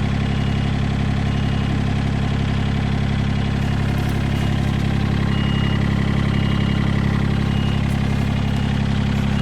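An engine running steadily at idle, an even low drone with no change in speed.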